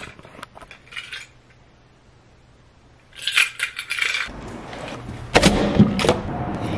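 Metallic jingling and clinking for about a second, then rustling and a couple of sharp knocks as the camera is picked up and carried.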